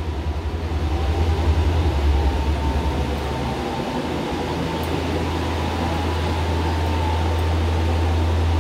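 Steady low rumbling hum of running fans, with a faint steady whine above it.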